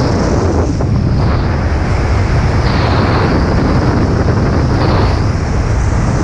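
Steady wind noise buffeting a skier's camera microphone during a fast downhill ski run, loud and even throughout.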